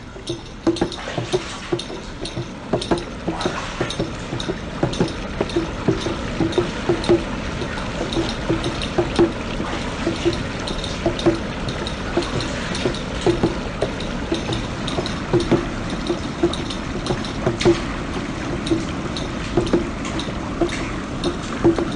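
Running, gurgling water with frequent short pops at the same low pitch, a few times a second.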